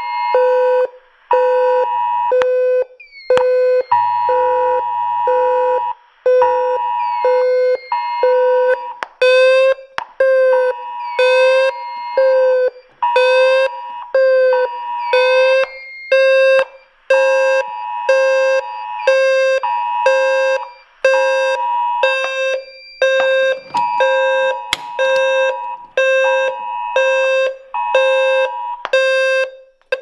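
Low-frequency fire alarm sounder pulsing a loud low tone in rapid on-off beats. Over it, a Simplex speaker plays the US Emergency Alert System attention tone, the two-pitch alert sound of a phone emergency alert, which the sounder largely drowns out.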